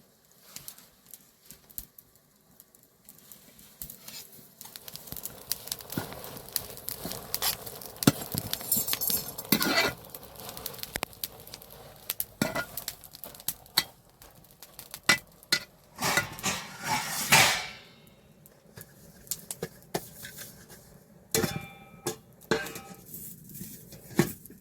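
Irregular clatter of dishes and utensils being handled: sharp knocks and clinks, with a couple of longer scraping stretches.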